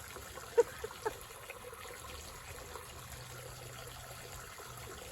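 Spring water running steadily from a pipe coming out of the ground, with two short sharp sounds about half a second and a second in.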